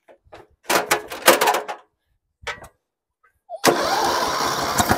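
A few knocks and rattles, then about three and a half seconds in the John Deere 108 lawn tractor's 8-horsepower, 318 cc Briggs & Stratton engine starts suddenly and keeps running.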